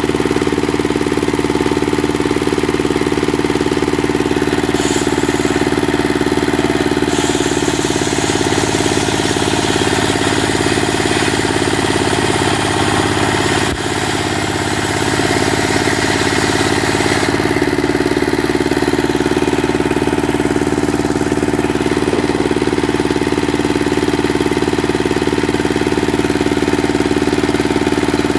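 Dongfeng single-cylinder diesel engine running steadily, driving a circular saw. From about 8 s to about 17 s its note changes while the saw cuts through a timber plank, with a sharp click near the middle.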